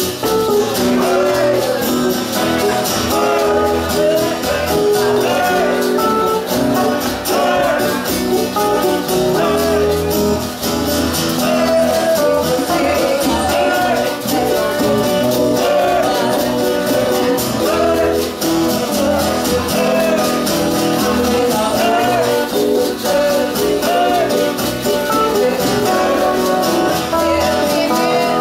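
Live acoustic band playing a song: strummed acoustic guitars under a woman's lead vocal with male backing voices, and egg shakers and maracas keeping the rhythm.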